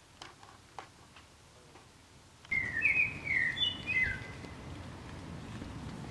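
A quiet room with a few faint clicks gives way, about two and a half seconds in, to outdoor ambience. A songbird sings a short phrase of quick rising and falling notes lasting about a second and a half.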